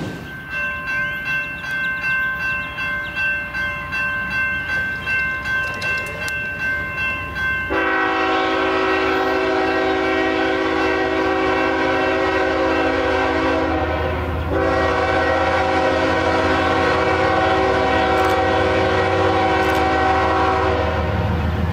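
Train rolling past with a rhythmic clatter and a thin, steady ringing tone. About eight seconds in, a locomotive horn starts suddenly and sounds one long, loud blast, broken briefly partway through, before stopping near the end.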